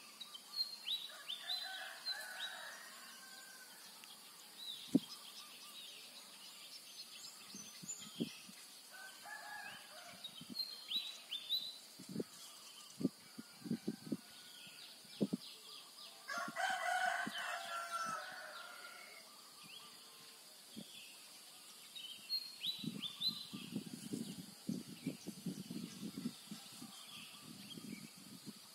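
A rooster crowing three times, the third crow the longest and loudest, over small birds chirping throughout. A run of low, irregular tapping comes near the end.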